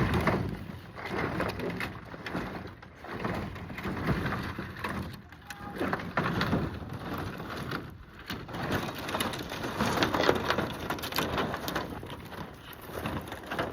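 Steady crunching and rustling of footsteps and brush on a dry, gravelly hillside as a greenhouse piece is carried uphill. The noise rises and falls in uneven swells.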